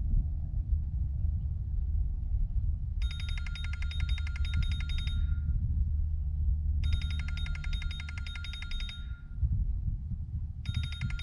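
An electronic ringer trilling three times, each ring a rapid warble about two and a half seconds long with a short gap between, over a constant low rumble.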